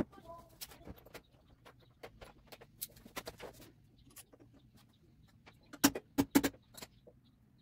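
Scattered small clicks and taps of hands working on front-end wiring and fittings, with a quick cluster of louder clicks about six seconds in.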